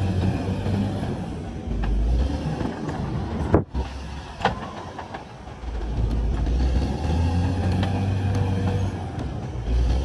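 CAT D6R bulldozer's diesel engine running hard, with a sudden break about a third of the way in, a single metallic clank a second later, and then the engine at full strength again.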